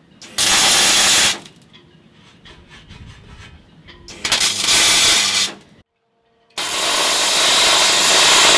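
MIG welder arc on aluminium: three spells of steady arc hiss, the first two about a second long, the third longer and starting about two-thirds of the way in. The wire is burning back, which the welder thinks is a wire-feed problem.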